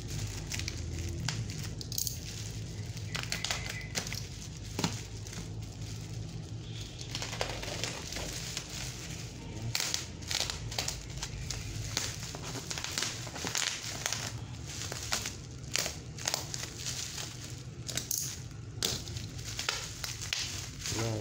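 Plastic parcel wrapping crinkling and crackling as hands pull and pick at it to open the package, in uneven rustles throughout.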